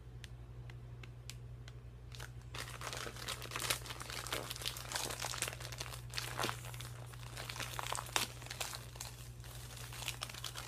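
Plastic snack bag of caramel popcorn crinkling as it is handled and torn open, sparse at first, then dense crackling from about two and a half seconds in.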